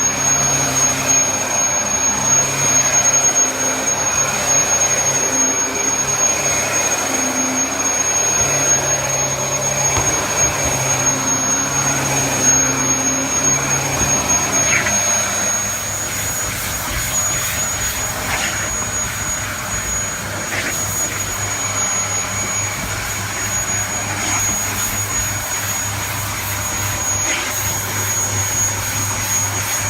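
Dyson DC33 upright vacuum cleaner running steadily with a high motor whine over its airflow noise. Its low hum changes and it gets slightly quieter about halfway through.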